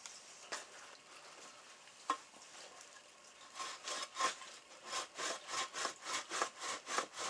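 Tanned coyote hide being pulled back and forth over a wooden breaking beam, the skin rasping against the wood in quick regular strokes, about three a second, from about three and a half seconds in. This is breaking the hide: stretching its fibres so it dries soft. A single sharp knock comes about two seconds in.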